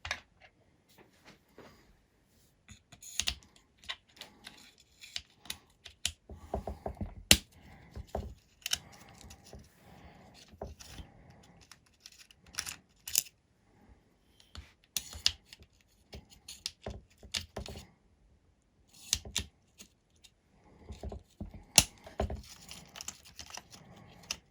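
Irregular clicks, taps and rattles of small tools and parts being handled while a hexacopter arm is taken apart, with a few sharper knocks.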